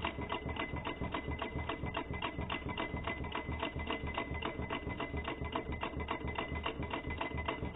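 Model two-piston Stirling hot-air engine running under its own power, heated by a flame at its finned hot cylinder; its crank and pistons make a fast, even clicking.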